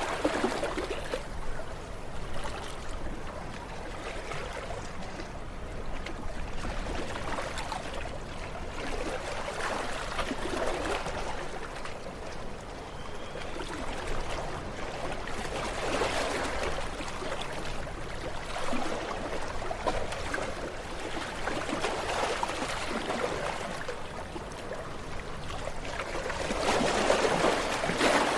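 Ocean waves breaking and washing up the shore, the noise swelling in surges every five or six seconds, the loudest near the end.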